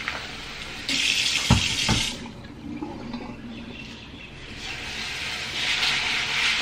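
Kitchen tap running into a bowl of buckwheat, water splashing as the bowl fills to soak the grain for sprouting. There are two dull knocks about a second and a half in. Near the end the stream swells again as the tap runs into a plastic colander bowl.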